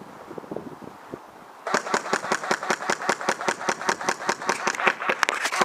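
Airsoft rifle firing on full auto, a rapid run of sharp shots at about nine a second, starting nearly two seconds in and carrying on steadily.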